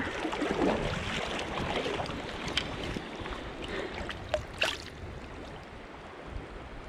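Shallow creek water flowing steadily around the wader, with a few brief splashes, the clearest about four and a half seconds in, as a trout is handled in a landing net at the surface.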